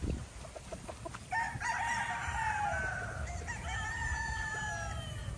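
Gamefowl roosters crowing: two long, drawn-out crows starting about a second in, the second overlapping the end of the first, each falling slightly in pitch.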